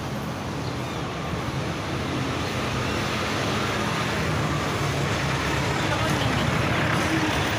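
Road traffic noise with a vehicle engine running close by, growing gradually louder.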